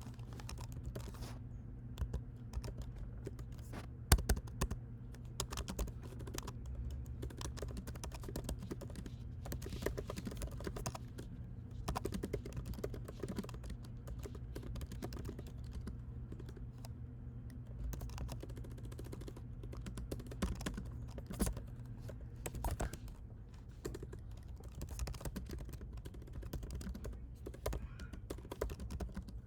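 Typing on a computer keyboard in irregular runs of key clicks, as an email is written, over a steady low hum.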